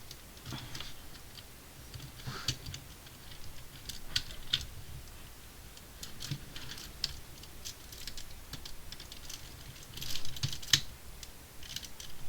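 Hard plastic Lego parts clicking, tapping and rattling as a built model is handled, in scattered small clicks with a busier run of clicks about ten seconds in.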